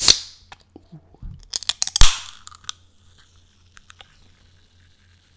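Aluminium can of Wild Cherry Pepsi being opened right at a microphone. A sharp click comes at the start, then a few small clicks, then the loudest pop about two seconds in, followed by a hiss of escaping gas and faint fizzing.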